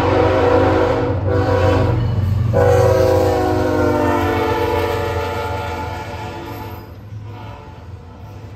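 BNSF freight locomotive's multi-tone air horn blowing as the train passes close by; the chord drops in pitch about two and a half seconds in as the lead engine goes past, then fades away, over the steady low rumble of the diesel engines. Near the end the wheels of the container cars rolling over the rails take over.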